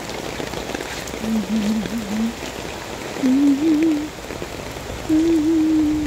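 Steady rain falling on wet pavement and plants. Three times, about a second each, a low wavering tone rises over the rain.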